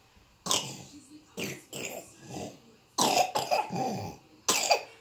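A baby of about six months making short coughing and grunting sounds in repeated bursts, the longest run about three seconds in.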